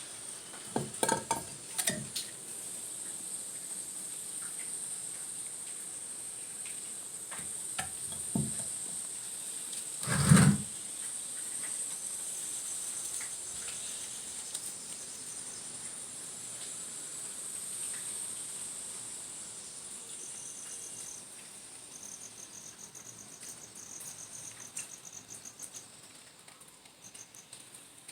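Steady high-pitched chirring of insects, like a cricket chorus, with a few light knocks and one louder thump about ten seconds in. In the last third a second insect trills in short pulses.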